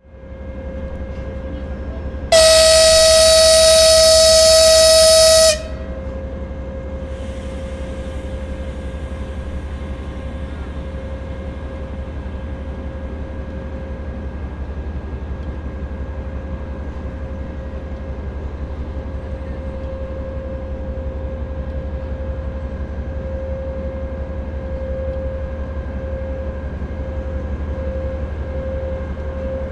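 TEP70BS diesel locomotive's engine running with a steady low throb, and one loud, long horn blast on a single pitch about two seconds in, lasting about three seconds. The engine grows slightly louder toward the end.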